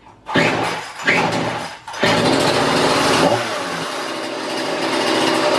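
Husqvarna 235 chainsaw's small two-stroke engine being pull-started: two short bursts of firing about a second apart, then it catches about two seconds in and runs fast. About a second later it settles to a lower, steady running speed.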